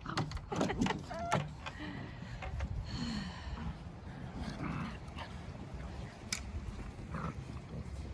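Puppies play-fighting: short low growls and grunts, with a brief high squeak about a second in.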